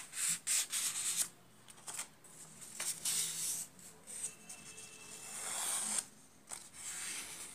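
A sheet of craft paper rustling and scraping under the fingers as it is folded diagonally and the crease is pressed down, in a series of short swishes and rubs.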